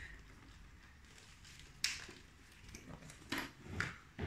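Sleeved trading cards handled and laid down on a cloth playmat: one sharp tap just under two seconds in, then a few softer taps and slides near the end.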